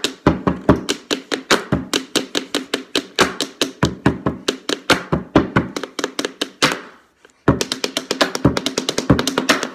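Two-handed pen tapping: pens drummed quickly on a hard surface in a fast percussive beat. It breaks off briefly about seven seconds in, then starts again.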